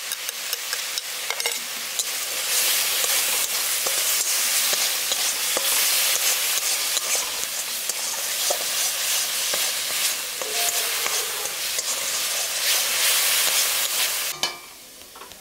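Spice masala sizzling in hot oil in a metal kadai while a metal spatula stirs and scrapes it, with frequent clicks of the spatula against the pan. The masala is being fried down (kasha). The sizzle cuts off abruptly near the end.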